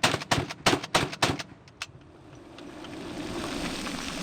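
Rapid semi-automatic fire from a 7.62x39mm WASR-10 AK-pattern rifle: about seven sharp shots in roughly a second and a half, then a few fainter ones. A steady noise slowly swells after the shooting.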